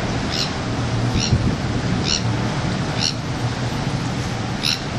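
Steady low rumble of the MV Cotentin ferry passing close by, mixed with wind and water noise. Over it, a bird gives a short high chirp about once a second.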